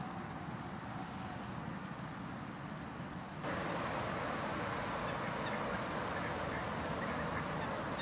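Two short, high chirps from a small bird, about half a second and two seconds in, over quiet outdoor ambience. The sound then changes abruptly to a louder, steady background of waterfowl calling on a pond.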